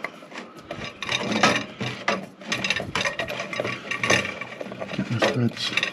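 A new immersion heater being screwed by hand into the threaded boss on top of a hot water cylinder: irregular ratchet-like clicking and grating of the pasted, PTFE-taped threads as the head is turned.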